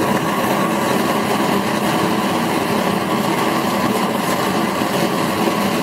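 Homemade single-jet propane burner firing up a steel burn tube: a loud, steady rushing roar from the propane jet flame.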